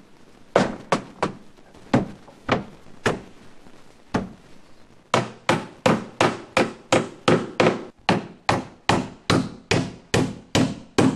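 Hammer driving 2½-inch hot-dip galvanized spiral nails through a pine siding board. A few separate blows come in the first four seconds, then a steady run of strikes at about three a second from about five seconds in.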